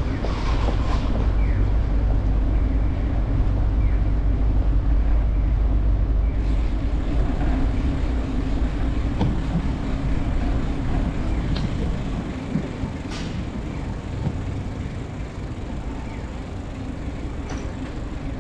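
Steady low rumble of city traffic, easing off about twelve seconds in, with a few faint clicks.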